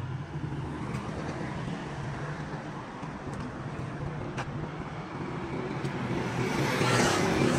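A motor vehicle's engine running steadily, growing louder over the last second or so.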